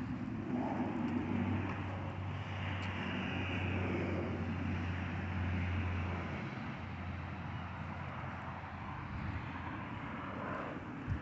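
A motor vehicle engine running with a steady low hum, strongest in the first half and easing off after that.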